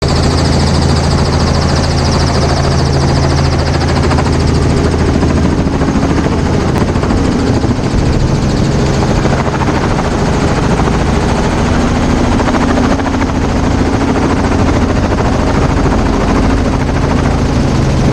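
Small helicopter's rotor and engine running loud and steady, heard close up by the open cabin door as it lifts off and hover-taxis low over the tarmac.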